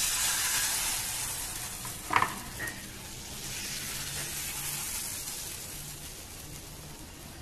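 Thin crepe batter sizzling in a hot nonstick frying pan just after it is poured in, the hiss slowly fading as the pan is swirled. A single sharp metallic clank comes about two seconds in.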